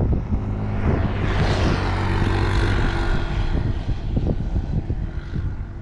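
A motorbike engine passing on the road, swelling for about two seconds and then fading away, over wind rumbling on the microphone.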